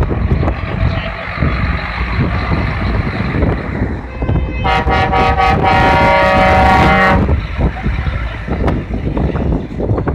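Passing lorry's diesel engine running. About halfway through, a truck air horn gives one long blast of some two and a half seconds, several notes sounding at once.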